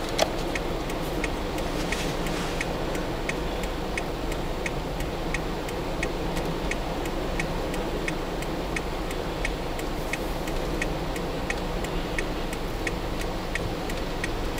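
A car's flasher relay ticking evenly, nearly three clicks a second, over the steady rumble of a vehicle moving through shallow floodwater.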